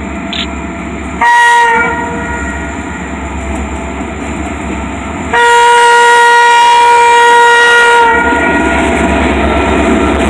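Freight locomotive air horn sounding a short blast, then a long blast of about three seconds, the closing part of the grade-crossing warning signal. Under it runs the steady rumble of the passing train, louder once the horn stops.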